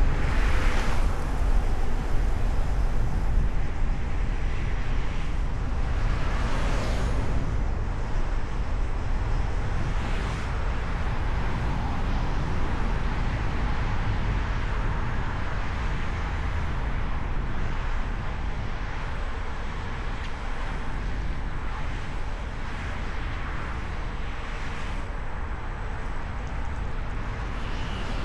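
Steady low road and wind rumble of a car driving through city traffic, heard from a microphone on the car's hood, with a few brief swells as other traffic passes.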